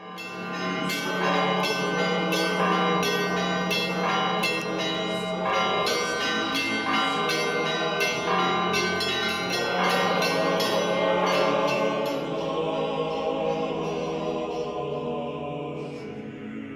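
Intro music of bells struck in quick succession, about two strikes a second, over a steady sustained low tone like a choir. The strikes stop about twelve seconds in and the ringing dies away.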